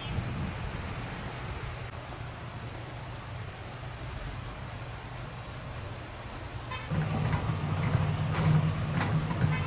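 Heavy vehicle engines running steadily, growing louder about seven seconds in, with a few sharp clanks.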